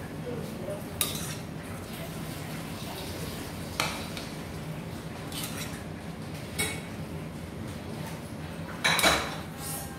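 Metal ladle clinking and scraping against stainless steel pots as cooked biryani rice is scooped from one pot into another. About five sharp clinks, the loudest near the end.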